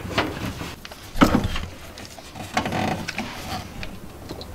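Handling knocks and scrapes as a gas cooktop's metal top frame is set in place against a plywood cabinet, with one sharp knock about a second in.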